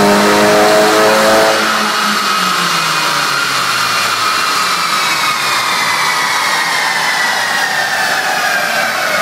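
Tuned VW Golf R's turbocharged four-cylinder at full throttle on a chassis dyno through its Scorpion turbo-back exhaust, then lifting off about a second and a half in at the end of the pull. The engine note drops away while a whine falls slowly in pitch as the wheels and dyno rollers spin down.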